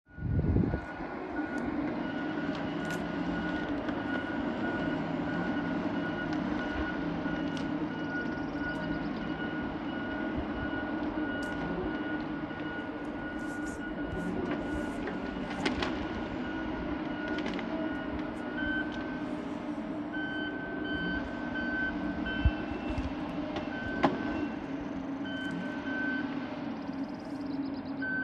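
Heavy forestry machines' diesel engines running steadily as a swing-boom skidder works. A high tone is steady at first and turns into the intermittent beeping of a backup alarm in the second half. Two sharp knocks come a second and a half apart late on.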